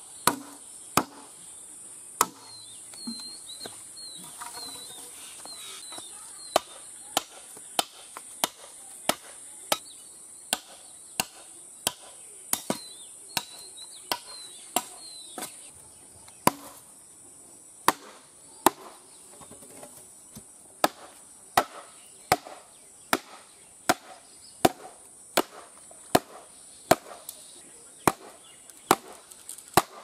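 Repeated sharp blows on bamboo, roughly one or two a second: a blade chopping a bamboo pole and a chunk of wood pounding bamboo stakes into the ground. Insects trill steadily and high-pitched underneath.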